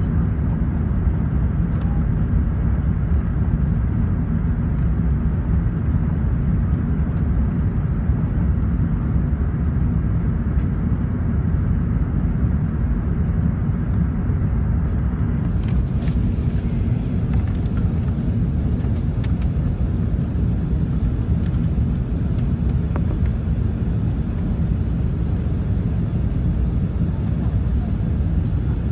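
Airbus A380 cabin noise in the climb just after takeoff: the steady low rumble of the engines and rushing air, heard from inside the cabin by a window seat.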